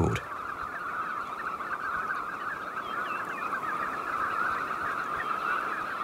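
A large flock of red knots calling together in flight: a continuous dense chatter of many short, overlapping calls.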